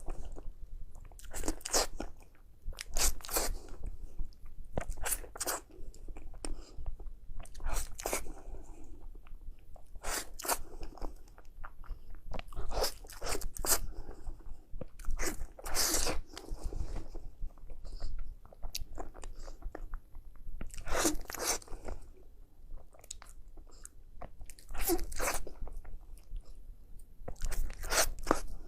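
A person biting and chewing food close to the microphone, mukbang-style: clusters of sharp clicky bites and chews every one to three seconds.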